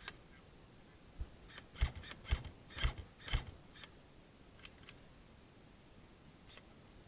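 A quick run of sharp clicks, each with a dull thump under it, about two a second for a couple of seconds, then a few fainter clicks.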